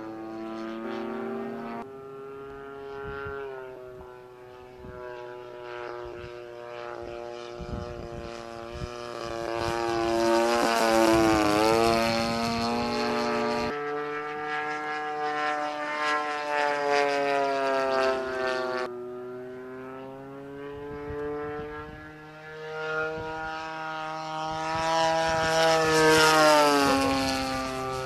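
Single-cylinder two-stroke petrol engine (DLE 30cc) of a radio-controlled Focke-Wulf Fw 190A model in flight, propeller buzzing. Its pitch rises and falls with throttle and as the plane passes. It is loudest on two passes, one about ten seconds in and one near the end.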